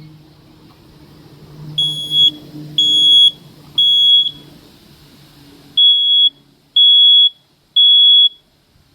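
Smoke alarm sounding on test: two rounds of three loud, high-pitched beeps, each about half a second long, in the three-beep evacuation pattern.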